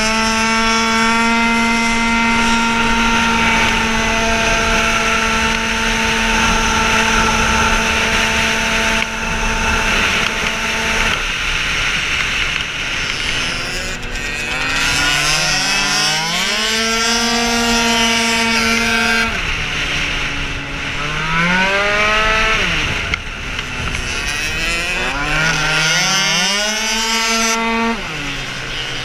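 Tuned two-stroke racing scooter engine, heard from the rider's position, held at high revs for about eleven seconds, then three times dropping off and climbing back up in pitch as the throttle is closed and reopened.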